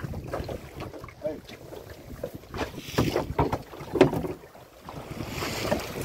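Irregular knocks and thumps on a fishing boat, with wind buffeting the microphone and a brief hiss near the end.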